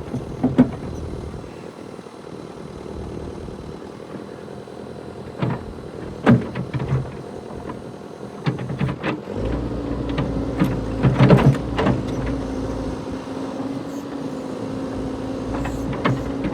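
CAT 420D IT backhoe loader's diesel engine running, with scattered metallic clanks and knocks. About nine and a half seconds in, the engine picks up and runs louder and heavier.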